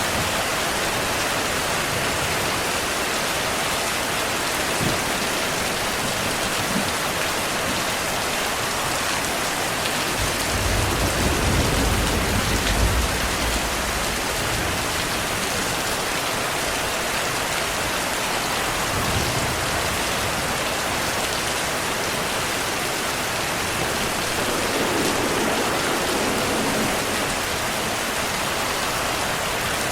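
Steady rain falling, with a low rumble of distant thunder lasting a few seconds about a third of the way in.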